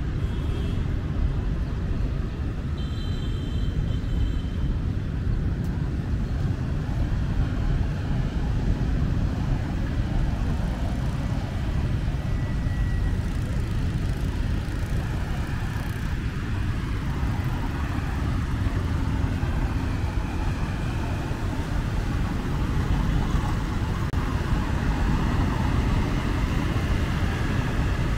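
Steady city street traffic: a constant low rumble of passing vehicles, with a few brief high-pitched tones near the start.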